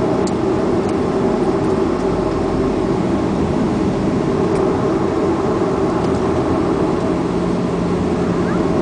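Steady engine and rolling noise inside the cabin of a Boeing 737-400 as it slows down the runway just after touchdown. Its CFM56 turbofans and the wheels make a dense, even rumble.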